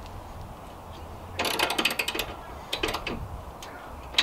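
Ratchet wrench clicking as it tightens the ladder's carriage bolts: a quick run of rapid clicks about a second and a half in, then a few shorter ones about a second later.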